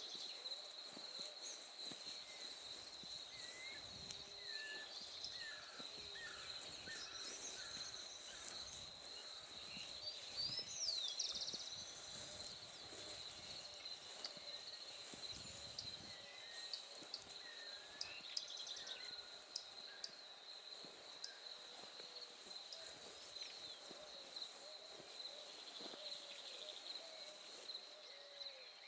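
Birds calling and singing in a dawn chorus: many short scattered chirps and whistled glides over a steady, high-pitched drone.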